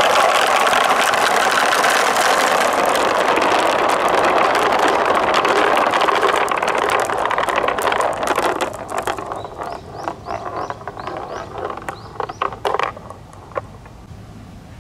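Many glass marbles rolling together down plastic rain-gutter channels, a dense steady rumble. About eight seconds in it thins out into scattered clicks and clacks of a few marbles rolling and knocking along the track.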